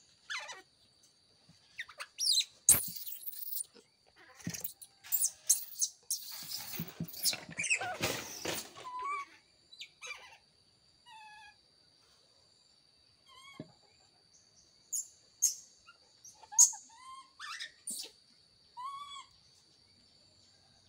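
Knocks and scuffling on a wooden crate in the first half, then a baby monkey's short, high, squeaky calls that arch up and down in pitch, several times in the second half, over a steady high-pitched whine.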